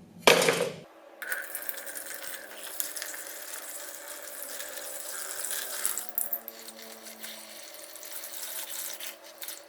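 A sharp knock in the first second, then a steady rush of running water.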